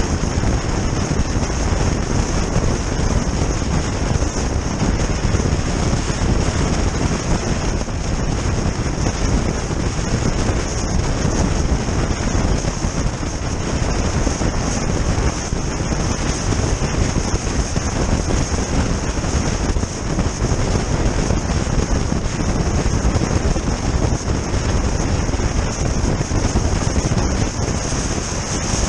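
Steady wind noise rushing over the microphone of a GoPro Hero Session mounted on the outside of a car driving at road speed, mixed with the rumble of tyres on the road.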